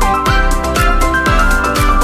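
Upbeat electronic background music with a steady kick-drum beat, about two beats a second, under a held synth melody.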